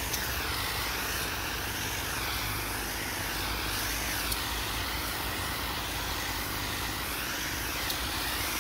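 Garden pressure sprayer wand spraying a fine mist of magnesium sulfate solution: a steady hiss whose tone slowly sways up and down.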